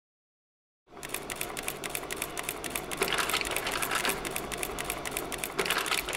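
Rapid, irregular clatter of clicks, like keys being typed, starting about a second in.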